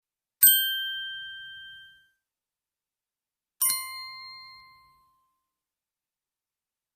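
Small bell struck twice, about three seconds apart, each ring fading away over a second or two. The second strike rings at a lower pitch than the first.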